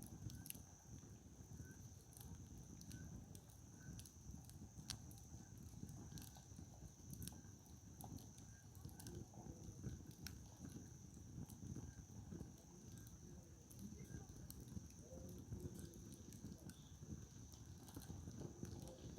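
Firewood campfire burning, faint crackling with scattered sharp pops over a low rumble. A thin steady high tone runs underneath.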